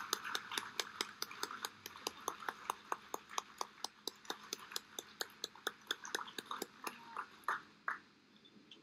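Audience applauding, a quick steady run of claps that thins out and stops near the end.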